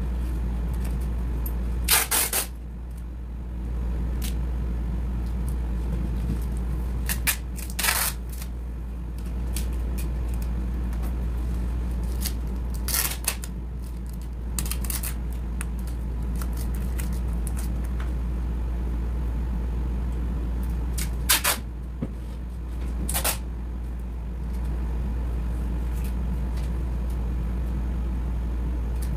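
Air conditioner running with a steady low hum, just cleaned and switched back on. About six short, sharp noises of handling break in, spread across the stretch.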